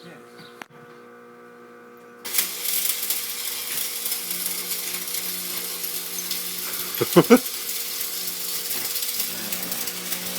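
Stick (arc) welder's arc struck about two seconds in, then crackling steadily as a bead is laid on steel, over a steady electrical hum.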